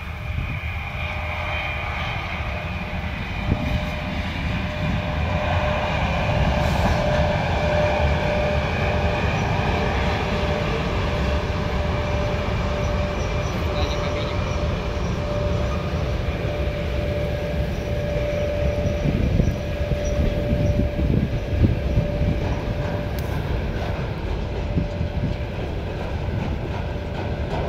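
Freight train behind a 2ES5K electric locomotive pulling out and rolling past: a continuous low rumble of loaded wagons' wheels on the rails, with a thin steady tone held throughout and a few short knocks past the middle.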